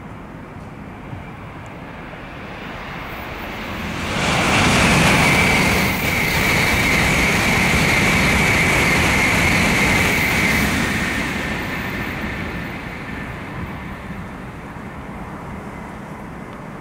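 N700-series Shinkansen high-speed train passing at speed on a curve. A rushing noise builds over a couple of seconds and holds loud for about seven seconds with a steady high whine over it, then dies away as the train recedes.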